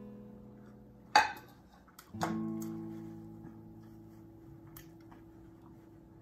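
Background music of plucked guitar, with notes and chords ringing out and slowly fading. There is a sharp, loud strike about a second in and a new chord just after two seconds.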